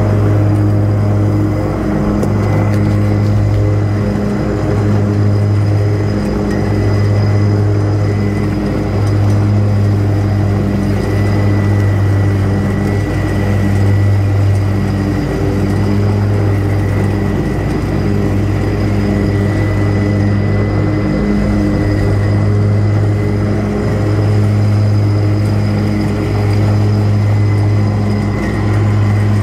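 Riding lawn mower's engine running steadily while mowing, a constant low hum with a thin high whine above it.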